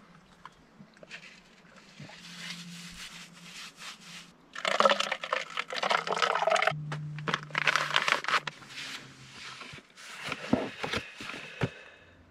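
Irregular rustling and crinkling of something being handled, louder from about four and a half seconds in, with scattered sharp clicks near the end and a faint low hum underneath.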